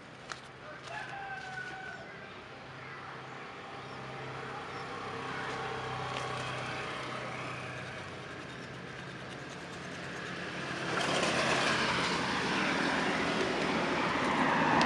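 Outdoor ambience: a rooster crows about a second in, over a steady low hum. From about eleven seconds in, the sound of a passing motor vehicle swells and becomes the loudest thing.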